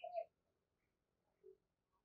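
The last note of a spotted dove's coo, ending about a quarter of a second in, then near silence.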